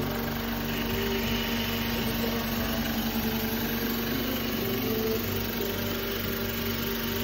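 Oxygen concentrator's piston air compressor running, uncovered: a steady mechanical hum on one constant low tone, with an airy hiss above it.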